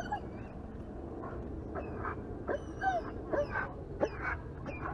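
Dogs whining and yipping in a series of short, high calls that bend in pitch, heard over a steady low noise.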